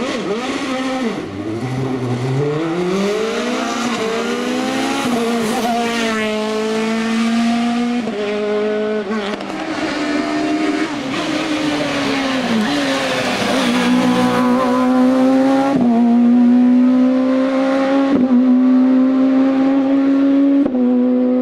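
Racing car engine at full throttle on a hill-climb course. The pitch climbs as it accelerates, dips for corners and breaks briefly at several quick gear changes, settling into a steady high note near the end.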